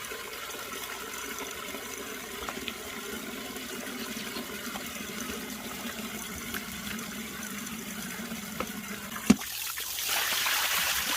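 Shower water running steadily, with a sharp knock about nine seconds in and a louder rush of spray near the end.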